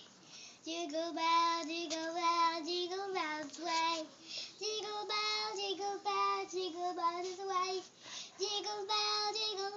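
A young boy singing a song, in phrases of held notes that step up and down in pitch, with short breaths between the phrases.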